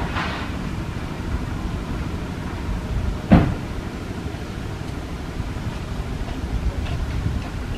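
Steady low outdoor rumble, like wind on the microphone, with one brief sharp sound a little over three seconds in as a second macaque clambers past the seated one.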